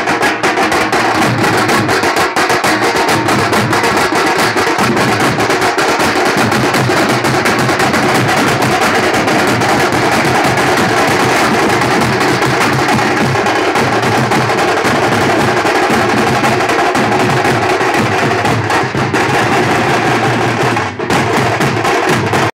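Loud background music of fast, dense drumming that keeps up without a break, then cuts off abruptly at the end.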